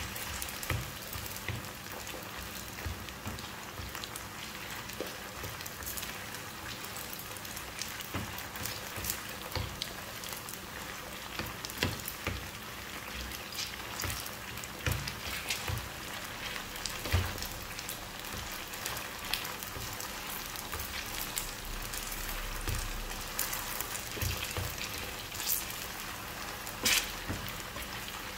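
Cornflour-coated chicken pieces frying in hot oil in a nonstick pan: a steady sizzle scattered with sharp pops and crackles, as the pieces are stirred and turned with a slotted spatula.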